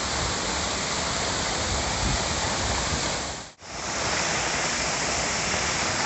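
Waterfall pouring into a rock pool: a steady, dense rush of falling water. The sound cuts out for a split second about halfway through, then resumes.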